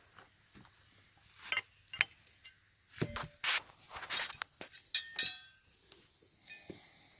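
Metal hand tools, likely wrenches, clinking and clattering as they are handled and sorted, with a run of sharp clanks from about a second and a half in and a brief metallic ring near the end.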